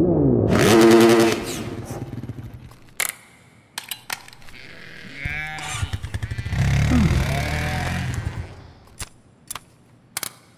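Engine sound effects for small model vehicles: a short rev near the start, a gliding whir in the middle, then a deeper engine running and revving for about two seconds. Sharp clicks of the models being set down on a tabletop are scattered between them.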